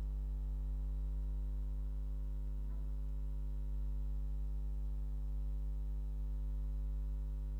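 Steady low electrical mains hum with a faint buzz of overtones above it, unchanging throughout.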